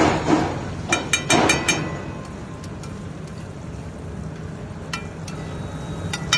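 A metal spatula scraping and clinking against a griddle while food cooks: a couple of short scrapes at the start, a quick run of ringing clinks about a second in, and a few single clicks later, over a steady low hum.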